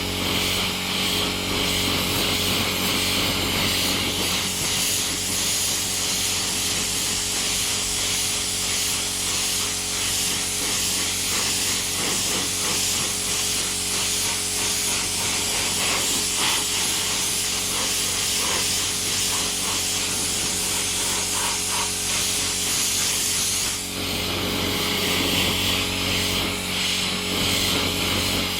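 Spray gun hissing steadily as it sprays metallic black paint, with a short break near the end, over a steady low hum.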